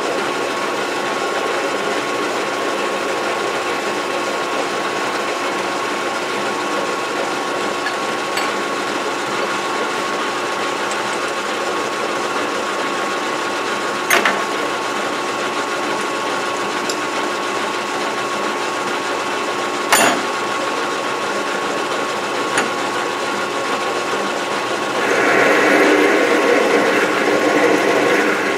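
Metal lathe running steadily with a steady hum while a drill bit in the tailstock chuck drills a 3/8-inch hole lengthwise through a metal bar. There are two sharp clicks, about 14 and 20 seconds in. The cutting gets louder near the end as the drill is fed in.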